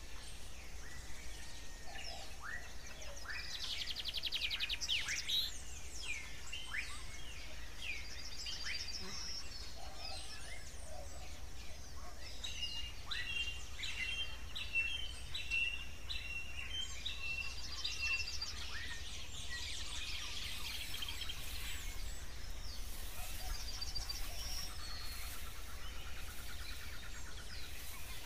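Birdsong ambience: several birds chirping and trilling, with short sweeping calls and a run of quick repeated notes in the middle, over a steady low background rumble.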